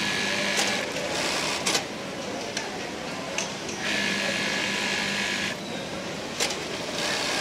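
Juki industrial lockstitch sewing machine running in short bursts, stopping and starting as the seam is fed, the longest run about a second and a half near the middle. Sharp clicks come between the runs.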